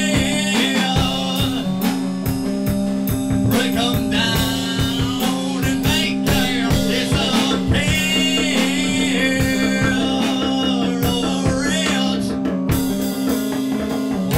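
Music: a song with guitar and singing over a steady beat and a sustained low drone.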